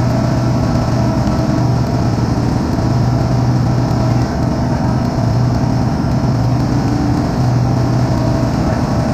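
Steady drone of running refrigeration machinery, compressors and their motors, with a strong low hum that holds without a break.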